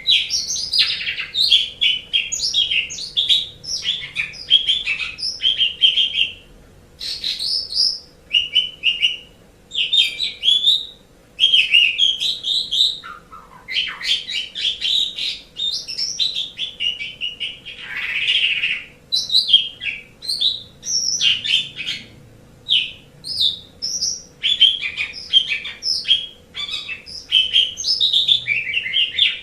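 Asian pied starling (jalak suren) singing: loud runs of quick, varied chattering and whistled notes in phrases of one to a few seconds, with short pauses between them.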